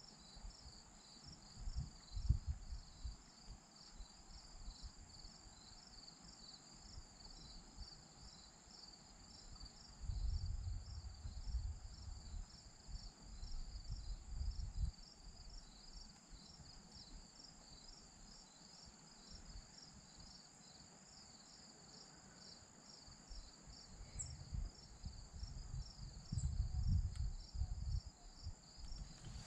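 Insects calling: a fast, steady pulsing trill of about four pulses a second over a thin, steady high whine. Intermittent low rumbles run underneath.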